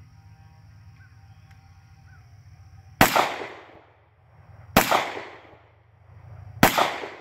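Three 9mm shots from a CZ P10C striker-fired pistol, fired deliberately about two seconds apart, each trailing off in a brief echo.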